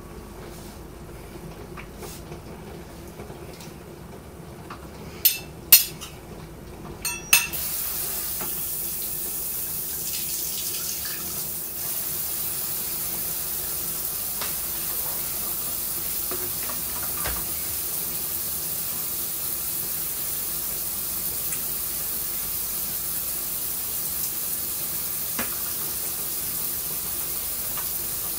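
A few sharp knocks of plastic buckets being handled, then a steady rush of liquid running into a plastic brewing bucket.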